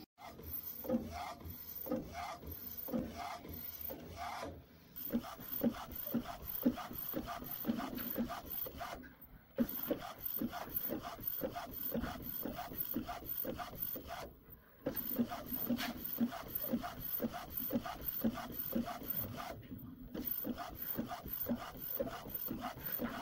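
Flatbed inkjet food printer's print head carriage shuttling back and forth across the cake while printing, a rhythmic rubbing whir of about two passes a second. It breaks off briefly three times as the printer pauses between passes.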